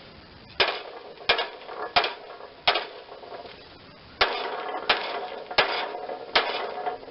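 Eight hammer blows on the steel mower deck in two runs of four, each strike ringing briefly, as a bent section of the deck is knocked back into shape.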